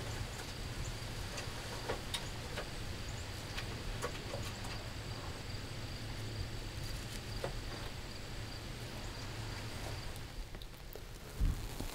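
Steady high-pitched insect drone over a low rumble, with faint scattered ticks and rustles. A couple of dull thumps come near the end.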